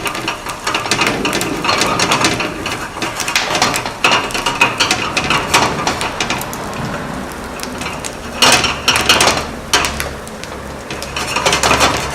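Kitchen clatter: dishes and utensils clicking and knocking in a busy, irregular run, with a cluster of sharper knocks about eight and a half seconds in.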